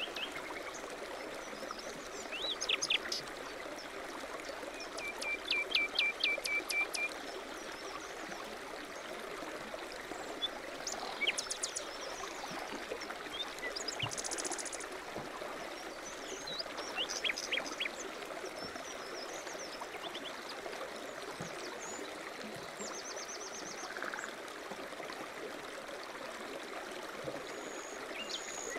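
Birdsong over the steady rush of a stream: various small birds chirp and trill, with a run of quick repeated notes about five seconds in.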